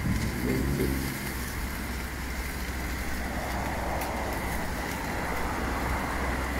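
A vacuum excavator truck's engine runs steadily, driving the hydraulics that tip its hopper. A short rising whine comes in the first second, and muddy water rushes out of the tipped hopper.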